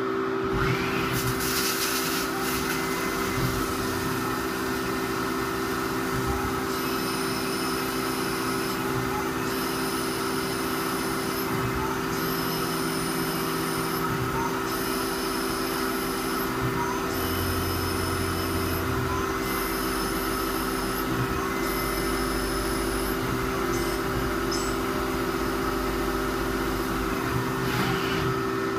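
CNC lathe cutting a 5/8-24 thread on a rifle muzzle: a steady machine and spindle hum, with a high hiss that comes and goes about seven times, evenly spaced, as the threading tool makes repeated passes.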